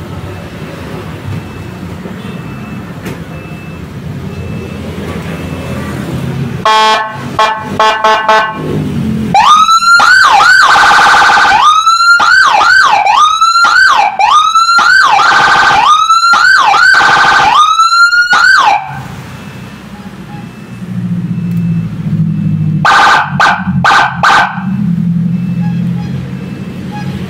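Whelen Alpha 200-watt electronic motorcycle siren cycling automatically through its tones. About seven seconds in it gives a few short stuttering blasts. Then come nine seconds of loud, rapid rising sweeps alternating with held steady tones, and a few short bursts near the end. A low engine hum runs underneath in the gaps.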